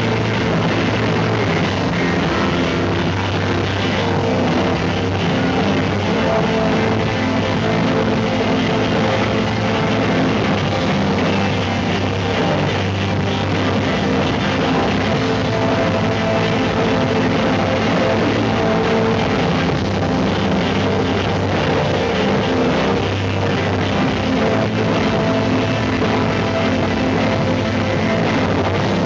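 Live rock band playing: electric guitar over a drum kit, steady and loud, heard through a dull VHS camcorder recording.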